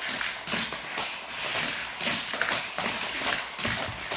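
Irregular clicks and taps of small die-cast Hot Wheels cars being handled against the plastic track, several a second.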